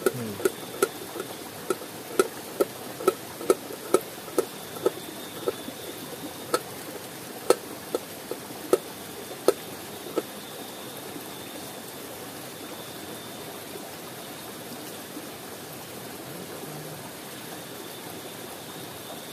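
Knife chopping on a metal pot lid, sharp ringing knocks about twice a second that stop about ten seconds in. A river's steady flow runs underneath.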